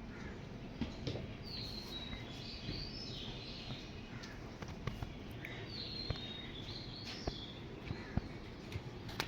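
Small birds chirping in short, high calls every second or so over steady background noise, with a few faint clicks.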